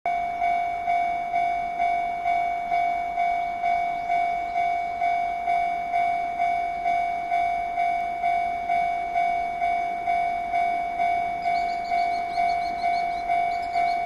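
Japanese railway level-crossing warning bell ringing steadily at about two strikes a second, each a single clear tone that dies away, signalling that a train is approaching.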